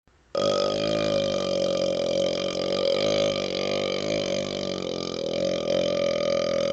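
A man's very long belch, brought up from chugged Dr Pepper, starting abruptly about a third of a second in and holding on unbroken at a fairly steady pitch.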